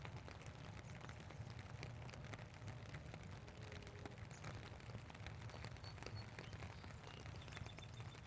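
Rain pattering: many small, scattered drop ticks over a faint, steady low rumble.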